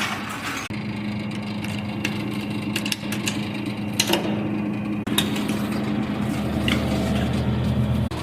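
Steady low machine hum that grows a little louder near the end, with a few sharp knocks and clicks over it.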